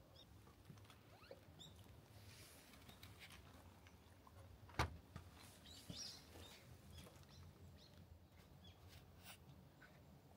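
Near silence with faint scattered ticks and short high chirps, and one sharp click a little under five seconds in, the loudest sound, with a smaller click about a second later.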